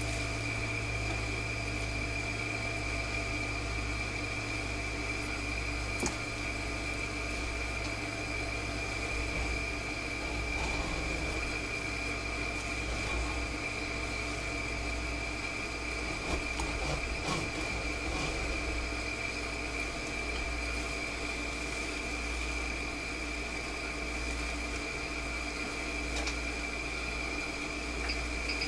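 Plastic spatula scraping soft shea and avocado butter out of a glass bowl, with a few light clicks of spatula and glass, over a steady background hum with a thin high whine.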